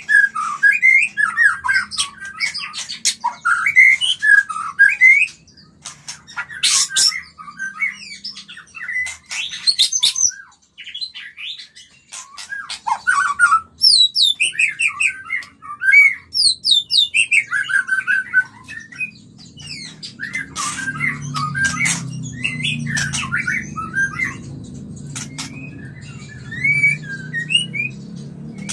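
White-rumped shama singing its mating song: a rapid, varied run of whistled phrases, harsh squawks and sharp clicks. A low steady hum sits beneath it from about two-thirds of the way in.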